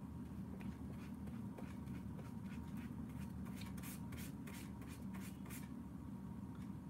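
Faint scratching of a paintbrush worked in short, irregular strokes across watercolor paper, over a steady low hum.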